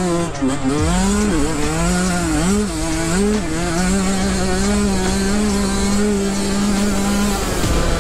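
Motocross dirt bike engine under hard riding: the pitch climbs and falls several times as the throttle is worked, then holds steady for about four seconds and drops away near the end as the throttle closes.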